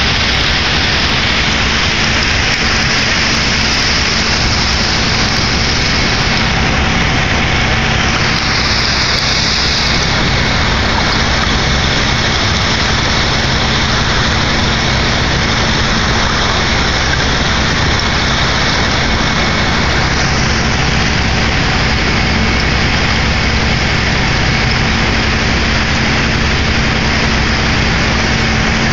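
A car ferry's engines running steadily under a loud, even rush of water and broken ice churning along the hull.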